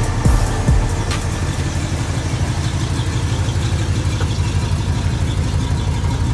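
1987 Chevrolet Monte Carlo SS engine idling with a steady, evenly pulsing low rumble, after a couple of deep thumps in the first second.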